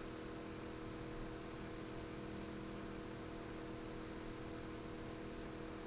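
Steady electrical hum with a faint hiss: the background room tone of the recording, with no other sound.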